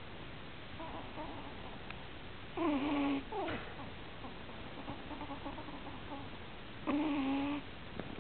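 Pomeranian puppy snoring in deep sleep: two loud pitched snores about four seconds apart, each under a second long and followed by a short falling squeak, with softer wheezy breaths in between.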